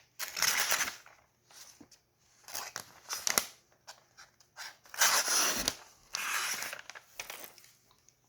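Freshly sharpened Swiss Army knife blade slicing through a sheet of paper in several separate strokes with pauses between, the paper rustling and tearing as it is cut. The edge now cuts paper, where before sharpening it could not.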